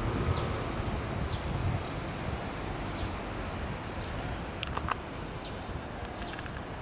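A small bird chirping, single short high chirps that slide downward, every second or two, over a steady low outdoor rumble. About five seconds in there is a brief sharp squeak.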